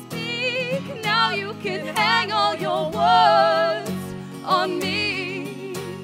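Two women singing together with vibrato, accompanied by two strummed acoustic guitars.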